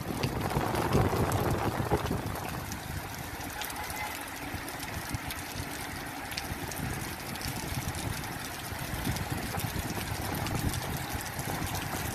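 Heavy monsoon rain: a steady rushing hiss with scattered sharp ticks of drops striking close by, over a low, uneven rumble that is a little stronger in the first couple of seconds.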